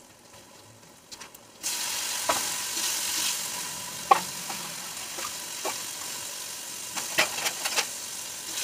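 Onion and tomato sizzling in a kadhai on a gas stove, with a few sharp scrapes and knocks of a metal spatula stirring it. The sizzling comes in abruptly about two seconds in.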